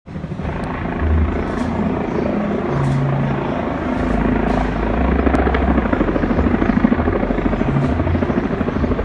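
Helicopter passing overhead, its rotor chopping in a rapid, steady pulse over a low rumble.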